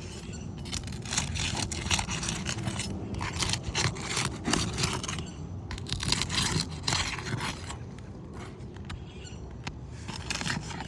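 A roof snake, a flat metal shingle-unsealing bar, scraping under asphalt shingles to break their sealant strips. It comes in rough bursts of scratching and clicking, heaviest in the first half, then trails off to scattered clicks near the end.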